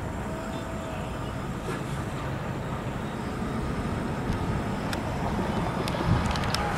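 Steady outdoor background of low rumbling road traffic and wind on the microphone, with a few small clicks in the second half.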